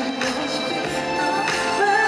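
A female pop singer singing live into a handheld microphone over accompanying pop music, with a few drum-like hits in the backing.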